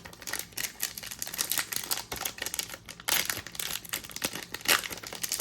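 A trading-card pack's wrapper being torn open and crinkled by hand: a run of crackling rustles, loudest about three seconds in and again near the end.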